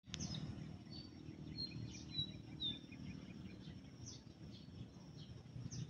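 Open-field ambience: a small bird gives four short high chirps in the first three seconds over a steady low rumble.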